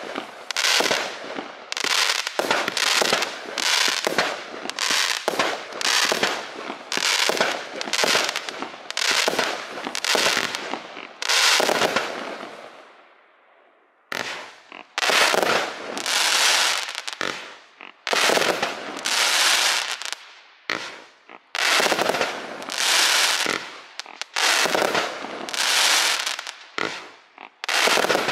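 NICO 'Harder! Faster! Louder!' 120-shot compound firework cake (25 mm calibre) firing a rapid string of shots, about two a second, each a launch and a crackling break in the air. The shots stop about 12 seconds in for a pause of about two seconds, then start again in quick succession.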